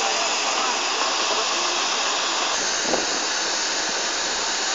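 Steam hissing steadily from a standing LMS Class 5 (Black Five) steam locomotive, with one light knock about three seconds in.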